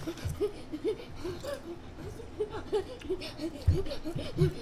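A person laughing: a long run of short, high laugh pulses, about three or four a second. Two low thumps come near the end.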